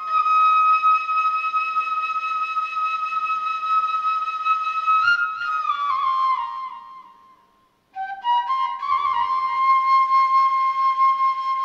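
Background music: a solo flute melody. One long held note steps down into a falling phrase that fades out about seven seconds in, and after a brief gap a new phrase begins.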